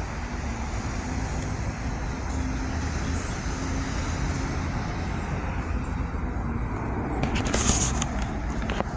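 Steady low rumble of distant outdoor traffic noise, with a brief hissing rustle about seven seconds in.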